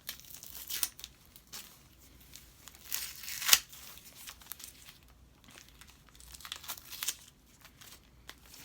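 Packing tape being ripped and peeled off a taped-up package, with plastic and paper crinkling, in irregular bursts; the loudest rip comes about three and a half seconds in.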